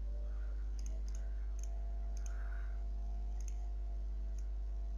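Several faint computer mouse clicks, scattered irregularly, over a steady low electrical hum.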